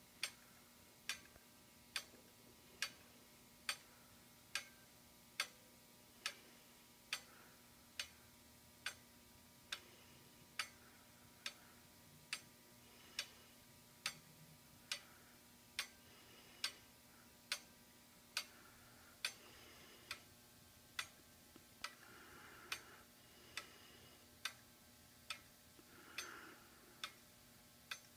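Wooden-geared Black Forest-style clockwork mechanism ticking steadily: one sharp click a little less than once a second, evenly spaced.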